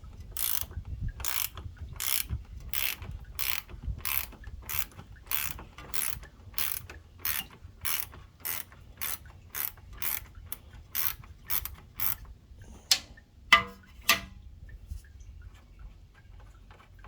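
Hand ratchet wrench being swung back and forth to back out a bolt, a burst of ratchet clicks on each stroke, about two strokes a second. The ratcheting stops near the end, followed by a few sharper metal clicks.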